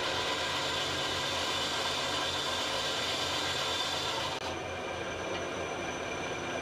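A power tool running steadily against aluminium stock, a continuous rasping, hissing noise with a quick pulsing hum underneath. The high hiss drops back a little after about four seconds in.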